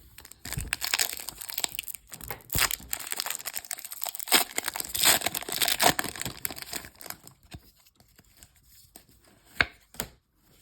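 Foil Pokémon trading-card booster pack being torn open, its wrapper crinkling. The crackling runs for about six seconds, then dies down to a couple of soft clicks near the end.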